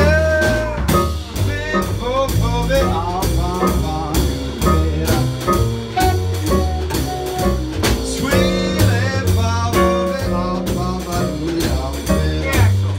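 Live jazz-blues band playing an instrumental passage: piano, upright bass and drum kit under a lead line whose notes bend in pitch.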